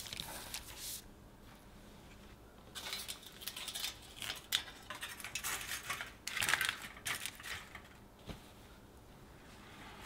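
Aluminium foil crinkling as it is pressed and shaped around the rim of a metal pie tin to shield the crust, in uneven crackly bursts for several seconds. A brief rustle comes at the start and a single light knock near the end.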